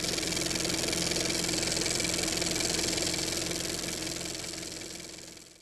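Intro sound effect under an animated logo: a steady, engine-like mechanical drone with a hiss and a held hum, fading out over the last second or so.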